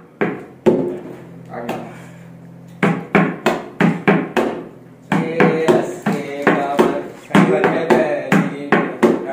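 Tabla played by hand: a few loose strokes at first, then a steady rhythm from about three seconds in that grows quicker and denser around the middle, with the right-hand drum ringing at a clear pitch.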